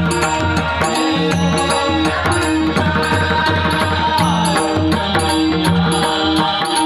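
Marathi devotional bhajan in the Konkan double-bari style: a steady, rhythmic drum-and-cymbal accompaniment with a melodic line wavering over it.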